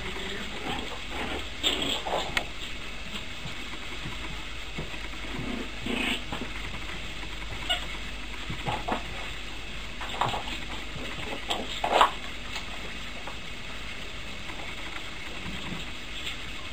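Puppies play-fighting, giving brief growls and yips every few seconds, the loudest about twelve seconds in, over a steady background hiss.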